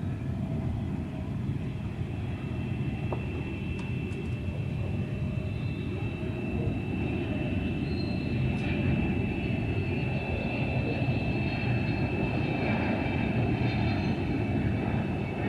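Jet airliner engines on approach: a steady low rumble with a high whine, slowly growing louder.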